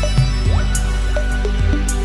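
Background music: sustained tones under short notes that slide in pitch, about two a second.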